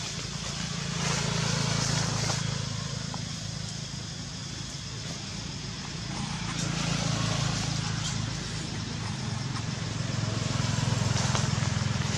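An engine running steadily, a low hum that grows louder and softer every few seconds, under a high hiss.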